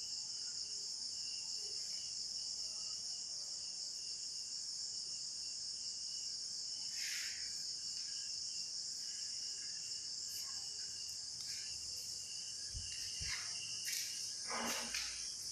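Crickets chirping in a steady, high-pitched chorus, with a few short knocks and rustles near the end.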